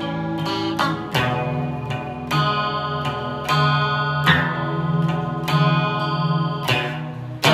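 Solo guitar music: plucked and strummed chords, each ringing on after it is struck, about one every second or so.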